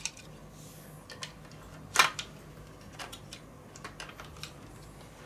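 Light clicks and taps of a hard drive in its metal mounting frame and a screwdriver being handled in a laptop's open drive bay, with one sharper click about two seconds in.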